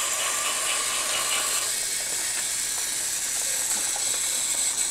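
Battery-powered GeoTrax toy train running along its plastic track, its small motor and gears making a steady whirring rattle.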